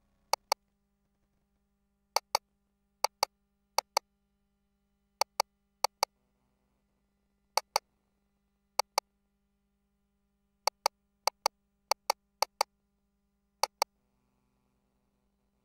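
Sharp clicks, mostly in quick pairs, about a dozen pairs at irregular intervals, from the keys and controls of a GE Voluson ultrasound scanner's console as measurement calipers are set and a label is typed.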